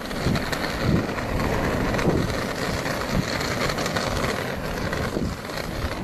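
Inline skate wheels rolling fast over asphalt: a steady rumble with a clatter of small clicks, mixed with wind on the microphone.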